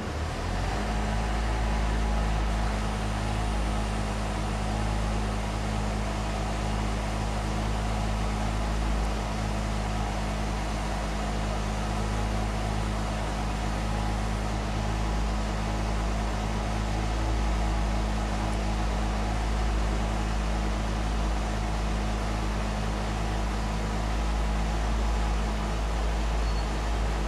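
Engine of a truck-mounted aerial work platform running steadily with a low hum.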